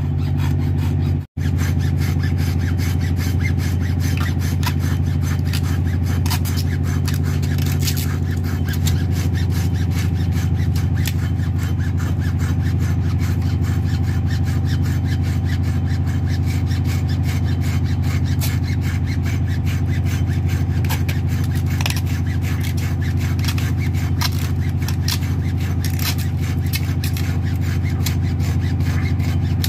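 Hacksaw cutting through thick old mooring rope in quick back-and-forth strokes, the blade rasping on the rope fibres, over a steady low machine drone.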